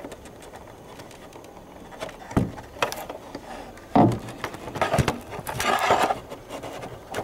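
Hands working a plastic tail-light wiring plug loose on a Fiat Palio: several sharp plastic knocks and clicks from about two seconds in, then about a second of rustling and scraping.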